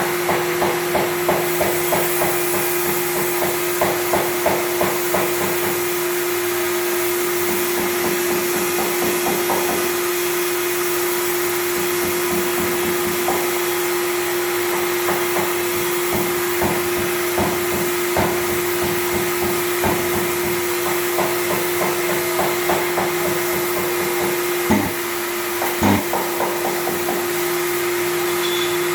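Dry sanding of a car's painted rear bumper. A motor hums steadily under rhythmic sanding strokes, a few a second, that come and go. Two sharper knocks come near the end.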